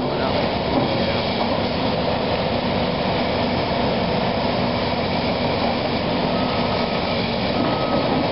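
Hydraulic excavator's diesel engine running under load as its bucket works at a brick wall, with a steady rumbling clatter of brick and debris breaking away.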